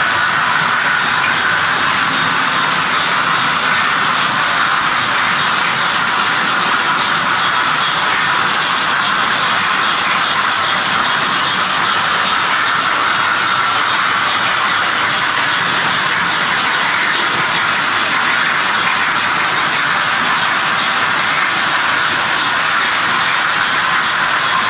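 Märklin model trains running on the layout's metal track, a steady rolling whir and hiss that does not change.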